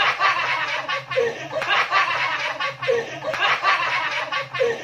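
A group of adults laughing together, several voices overlapping in a continuous burst of laughter.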